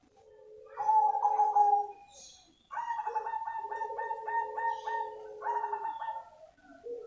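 Cemani zebra dove (perkutut) cooing in two phrases: a short one at the start, then a longer, rapidly pulsing run of coos from about three seconds in that lasts around three seconds.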